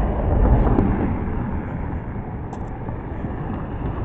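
Steady low outdoor rumble of road traffic and wind on the microphone. It swells briefly about half a second in.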